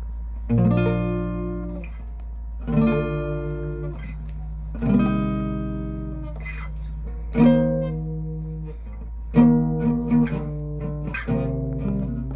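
Acoustic guitar strummed with a pick: single chords struck about every two seconds and left to ring out, coming closer together near the end. A steady low hum runs underneath.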